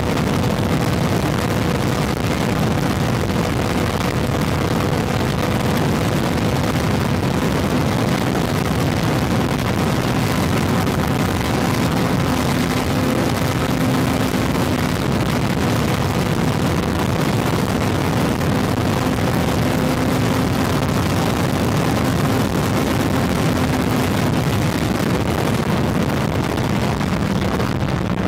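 Honda CB400 motorcycle cruising at steady highway speed: a constant engine drone under heavy wind and road rush.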